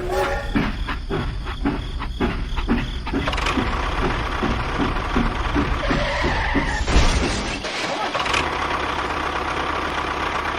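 Motor of a DIY mini tractor running steadily with a rapid chugging pulse, strongest in the first few seconds, and a single thump about seven seconds in.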